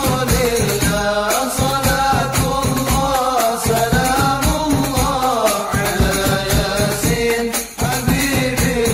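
Islamic devotional song (sholawat) sung in a melodic chant over a steady rhythm of hand percussion.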